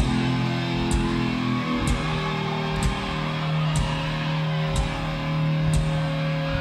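Live heavy metal band playing loudly: distorted electric guitar holding chords over bass, with a kick drum and cymbal struck together about once a second.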